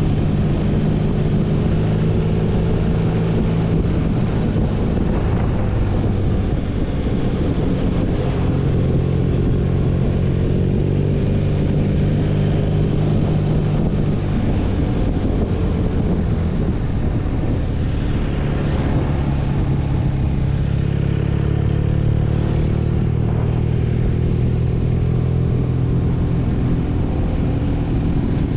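BMW R nineT's boxer twin engine running under way on the road, its note rising and easing gently a few times with the throttle.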